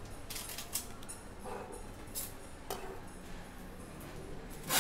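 Trading cards being handled: a few soft clicks and slides of card stock against other cards and the table, over faint room tone.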